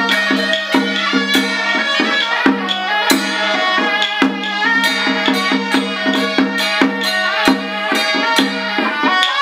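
Traditional temple-procession music: a steady droning pitched tone with melodic lines above it, punctuated by sharp percussion strikes a few times a second.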